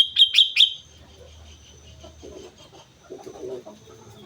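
Sooty-headed bulbul (kutilang) calling: a quick run of about four sharp, loud chirps in the first second, over a steady high-pitched insect drone.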